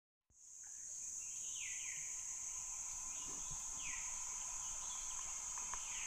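Forest stream-side ambience: a steady, high-pitched insect drone that fades in at the start, with a bird giving short, falling call notes several times.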